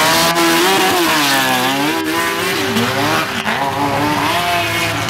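Sport ATV engines revving hard, their pitch climbing and dropping several times, with two engines sometimes heard at once.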